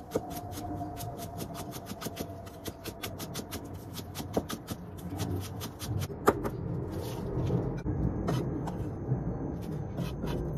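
Cleaver chopping green onions on a round wooden chopping block: a long run of rapid, even knocks, several a second.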